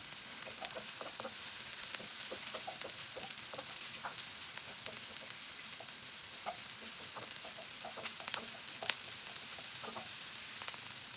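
Sliced red onions sizzling in oil in a nonstick wok while a wooden spoon stirs them: a steady sizzle with scattered small ticks and taps.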